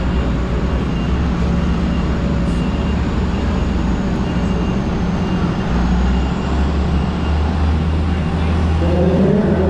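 A pulling tractor's engine running loud and steady, with a deep drone.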